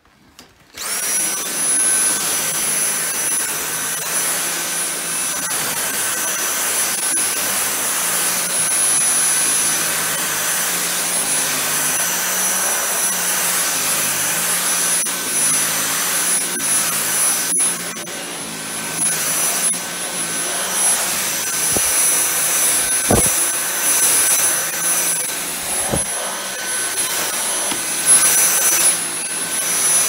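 Dyson cordless stick vacuum switched on about a second in and running steadily on its max setting, with a high-pitched motor whine, as its motorised brush head sweeps an artificial-grass mat. A few brief knocks come in the second half.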